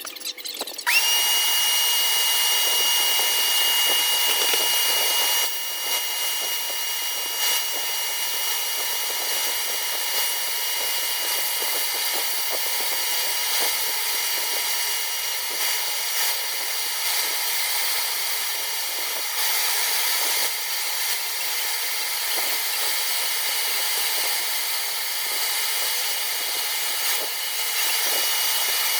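WEN LA3421 mini lathe motor spinning up about a second in, then running with a steady high whine. Under the whine is a rough hiss that rises and falls as the turning tool works the spinning Baltic birch blank.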